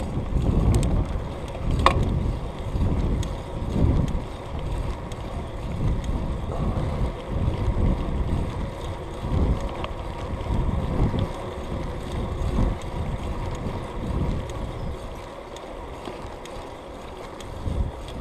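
Wind buffeting the microphone of a camera on a moving bicycle: a gusty low rumble that swells and fades, with a single sharp click about two seconds in.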